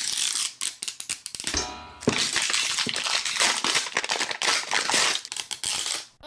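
Crinkly plastic-foil packaging being torn open and then clear plastic wrap being peeled off a plastic container: dense crackling and crinkling with many small snaps, easing off briefly about a second and a half in.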